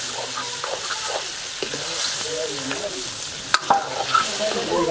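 Chicken curry sizzling in a metal kadai while a flat spatula stirs and scrapes through it, with a sharp metal clink of the spatula on the pan about three and a half seconds in.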